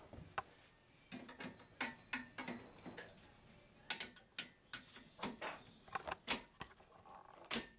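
Aluminum bottom rail of a deck railing being fitted in between the posts, knocking and clicking against the posts and deck boards as it is set into place: a string of irregular sharp taps and clicks.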